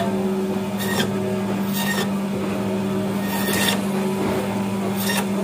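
Band saw motor running with a steady hum while its blade cuts through pangas catfish into steaks. Four short rasping cuts come about a second apart.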